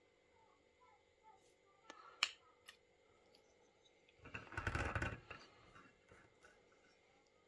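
A few sharp clicks of a small plastic pastry tool tapping on an enamel tray. About four seconds in comes a louder rustling handling noise lasting about a second.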